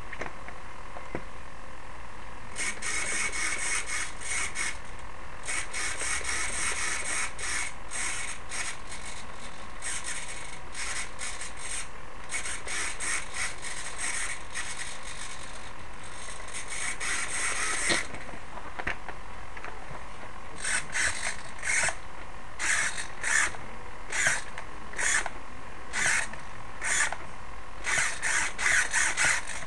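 Micro RC servo buzzing as it drives the aileron on a coroplast wing. There are fast back-and-forth runs through the first half, then short separate moves, one or two a second, near the end.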